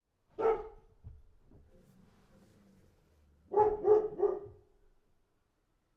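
A dog barking: a single bark, then about three seconds later a quick run of three barks.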